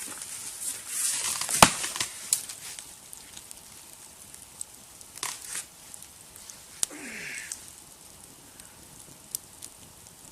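Dead pine tree cracking and tearing as it gives way and falls, with a sharp crack about a second and a half in, then scattered snaps and crackles of breaking wood and branches.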